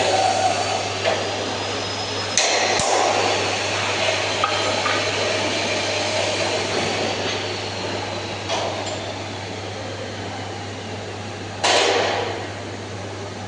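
Angle grinder running on sheet metal, a steady noisy whine that slowly drops in pitch, with sharp metal knocks twice about two and a half seconds in and once more, louder, near the end.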